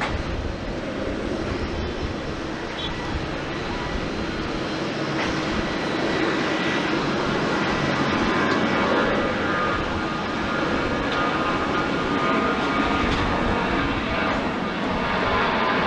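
Jet engines of a Boeing 737-800 (CFM56-7B turbofans) running, the noise building over the first several seconds and then holding steady, with a faint whine in it.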